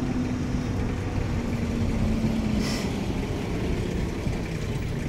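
Safari vehicle's engine idling steadily, a low rumble with a faint hum that drops a little in pitch about halfway through.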